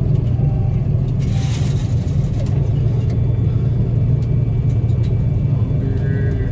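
Gleaner combine running with a steady low drone.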